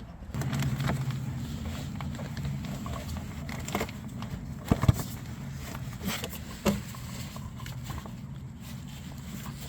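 A steady low mechanical hum that starts about a third of a second in and keeps going, with scattered clicks and knocks over it, the loudest a short double knock about halfway through.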